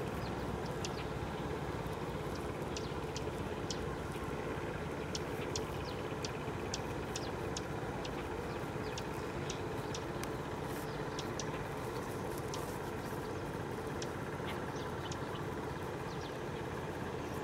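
Long-tail boat engine running steadily as the boat crosses the water, a constant drone, with short high chirps scattered over it.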